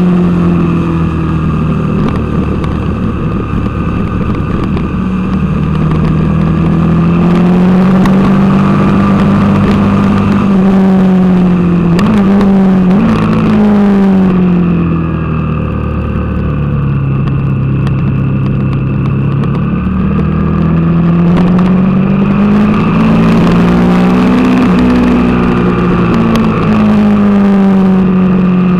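Suzuki TL1000R's 996 cc V-twin engine heard on board the bike at speed on track. Its note repeatedly rises under acceleration and drops with gear changes and braking, with quick jumps in pitch about twelve seconds in and again near twenty-five seconds, over a steady rush of wind noise.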